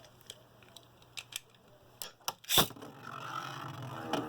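Light plastic clicks and taps of Beyblade parts being handled and fitted together, with a sharper click about two and a half seconds in, followed by a steadier, rising noise near the end.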